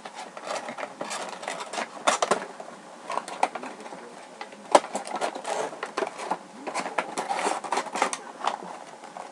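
Irregular clicks, taps and rustles of toy figures and their cardboard and plastic packaging being handled.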